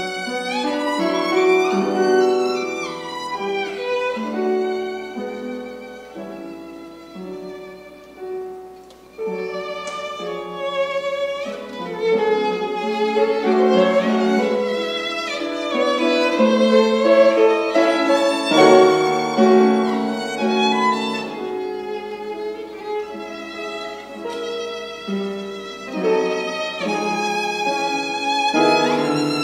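Solo violin played with the bow in a classical piece: a singing melody with vibrato on held notes, softer for a few seconds before swelling louder again about nine seconds in.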